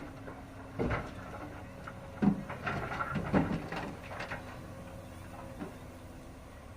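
Komatsu excavator's diesel engine running steadily, with a knock just before a second in and a run of clattering knocks and scrapes from about two to four seconds in, as stones are handled in loading.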